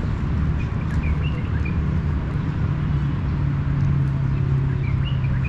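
Steady low rumble of motor traffic, with an engine drone swelling about halfway through. A small bird chirps a few times about a second in and again near the end.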